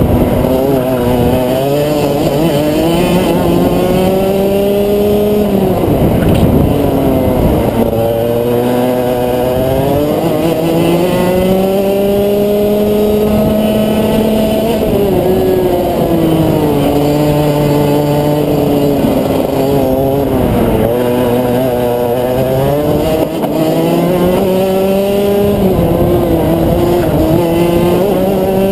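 Rotax Max 125cc two-stroke kart engine at racing speed, its pitch climbing along each straight and dropping sharply under braking for the corners, several times over.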